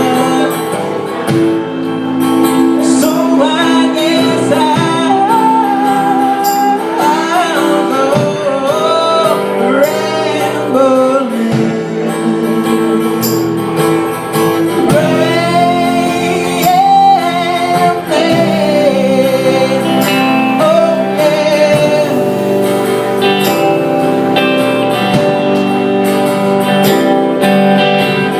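Live band music: a woman singing a melody over plucked and strummed guitar accompaniment, played without a break.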